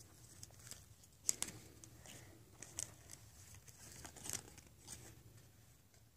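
Faint rustling and crinkling of a cardboard card-deck box and its paper contents being handled, with a few sharp clicks, the loudest about a second in.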